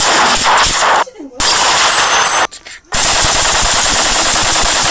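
Automatic gunfire in rapid bursts: two short bursts, then a long continuous burst starting about three seconds in.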